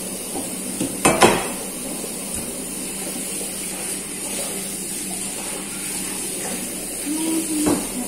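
A knife knocks against a plastic cutting board about a second in. Then a kitchen tap runs steadily into the sink while raw chicken is rinsed under it, with another knock near the end.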